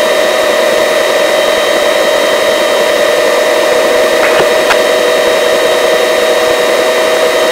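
Helicopter cabin noise in flight: a steady, loud whine made of several held tones over a hiss from the turbine, gearbox and rotor, with a couple of faint ticks about four and a half seconds in.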